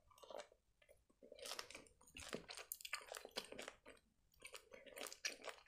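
Faint, close-up chewing of sour sugar-coated gummy candy: irregular soft wet mouth clicks and smacks, starting about a second in.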